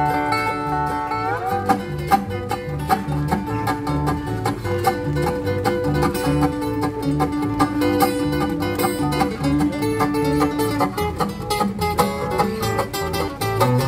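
Live acoustic bluegrass band playing an instrumental break without singing: plucked string lead over acoustic guitar rhythm and a steady upright bass pulse. Sliding notes, typical of a resonator guitar (dobro), come about a second and a half in and again at the end, with fast picked notes between.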